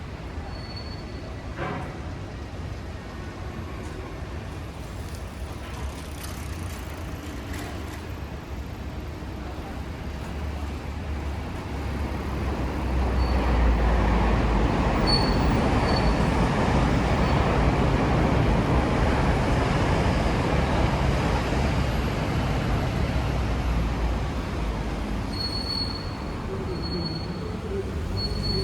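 Tobu Railway electric train passing: a low rumble builds from about twelve seconds in, stays loud for about ten seconds, then fades. A few short high beeps sound at times.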